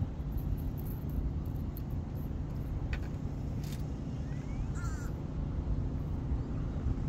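Steady low outdoor rumble, with a single short bird call about five seconds in and a couple of faint clicks.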